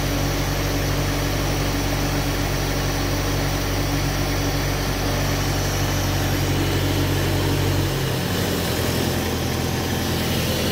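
Self-generating nitrogen servicing cart running with a steady low machine hum, unloaded for shutdown. About eight seconds in, the deepest part of the hum drops away and the machine runs on more lightly.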